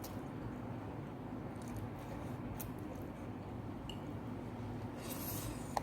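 Quiet eating of spicy noodles: a few faint mouth and utensil clicks over a steady low hum, with a short hiss, like a slurp or sharp breath, near the end.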